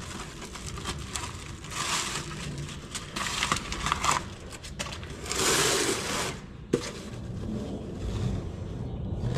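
Plastic bag and packing paper crinkling as a new tractor clutch pressure plate is unwrapped, in several rustling bursts, the loudest a little past halfway. A single sharp tap comes about two-thirds of the way through.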